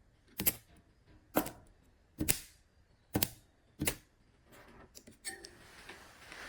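Five sharp clicks or snaps, a little under a second apart, followed by a faint crackling hiss with a few small ticks.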